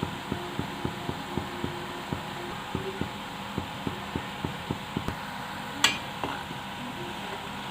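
Rice-flour dough balls deep-frying in hot oil in a kadhai: a steady sizzle with soft pops about three times a second, and one sharp click about six seconds in.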